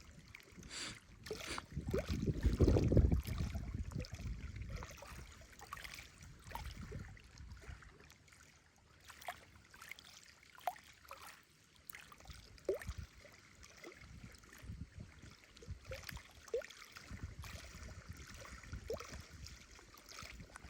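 Small waves lapping and gurgling against a reservoir shore, in irregular little splashes. A louder low rush swells about two seconds in and fades by about four seconds.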